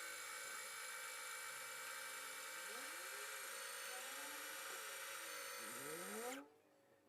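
Husqvarna Viking E10 sewing machine running steadily at speed while winding a bobbin, then stopping abruptly about six seconds in.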